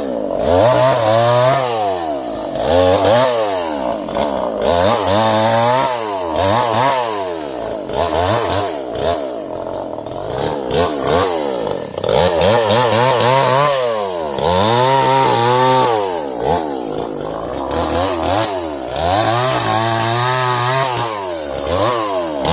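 Two-stroke chainsaw working through sengon wood, its engine revving up and dropping back over and over, the pitch rising and falling about every second and a half.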